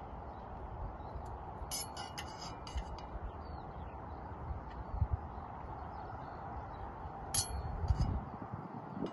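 A metal serving spoon clinking against a pot and a metal serving platter as cooked rice is dished out, in two short runs of bright clinks, about two seconds in and again near the end. A steady low rumble of wind on the microphone lies under it.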